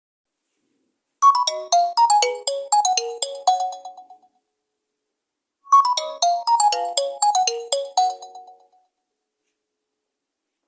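Nokia C20's preset incoming-call ringtone: a short melody of quick, bright notes that falls in pitch and dies away, played twice with a pause of silence between.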